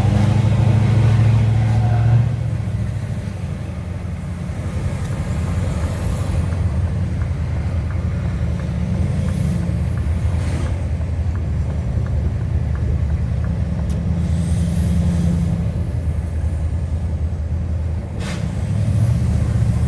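Scania R730's V8 diesel engine running steadily, its low drone rising and falling as the revs change. A faint high whistle sweeps up and then down several times, and there is one brief sharp click near the end.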